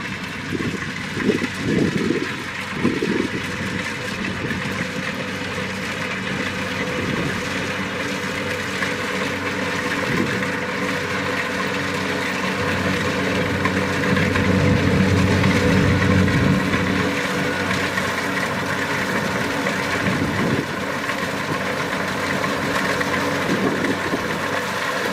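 Kubota DC-70 Plus rice combine harvester's diesel engine running steadily under working load, with a few low thumps in the first three seconds.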